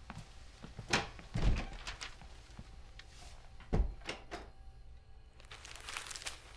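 A door being handled and shut: clicks and a thud about a second and a half in, then a heavier thud near four seconds in, followed by a few latch clicks.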